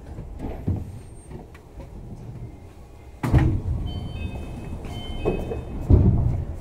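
Sliding doors of a Tama Toshi Monorail 1000-series car working at a station stop. Over a low rumble there is a sudden loud rush of noise about three seconds in, a few short high beeps in the next two seconds, and a second loud push near the end.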